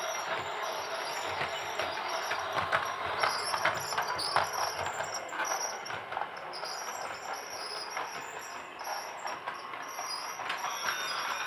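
Toy train running: a steady rattling whir with many small clicks from its wheels and parts. About a second before the end a tune starts playing.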